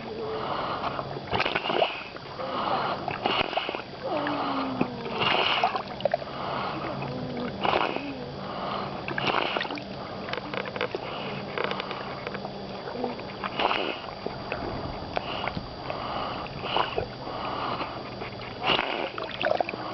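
A stone at the sea's edge making a rasping, snoring-like noise as the waves wash around it: short rough pulses come roughly once a second, with now and then a brief falling gurgling tone.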